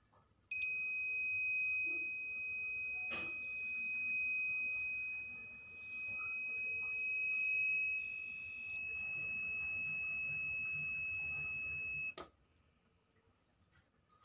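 MOSFET tester's buzzer sounding one steady high-pitched tone for about eleven seconds, with a click about three seconds in, then cutting off suddenly. It sounds while the test probes bridge the legs of an N-channel IRF MOSFET, showing the part conducting, which the test marks as normal.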